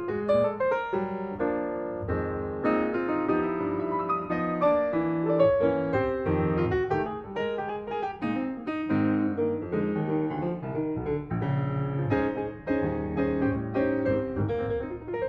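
Background piano music, a busy run of many quick notes.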